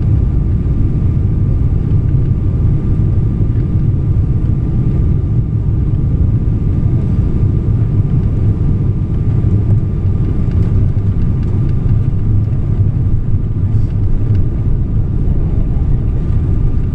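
Cabin noise of a Boeing 777-300ER on final approach and touchdown: a steady low rumble of its GE90 engines and rushing air, with a faint steady whine above it. The touchdown is soft and makes no distinct thump, and the rumble stays even as the spoilers come up on the runway.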